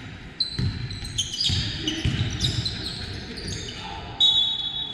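Basketball being dribbled on the court, the ball bouncing in repeated knocks, with sneakers squeaking on the floor and a louder, longer high squeal near the end.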